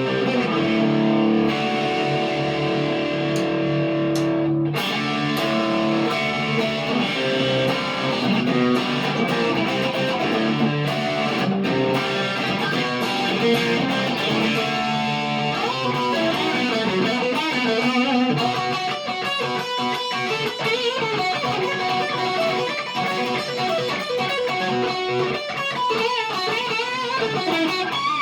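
PRS McCarty 594 Hollowbody II electric guitar played through a Marshall DSL40C amp: held, ringing chords first, then melodic single-note lines that become quicker and busier in the second half.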